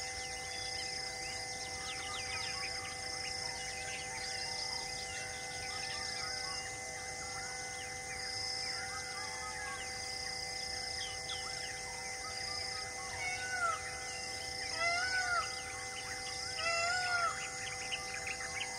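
Birds chirping and calling, with a high call repeating about once a second and three louder arching calls near the end, over a steady held tone.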